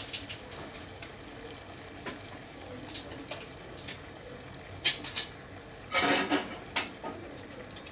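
Fish curry simmering in a pan with a low steady hiss, and a few sharp knocks of a spoon against the pan about five and six seconds in as coconut milk is spooned in.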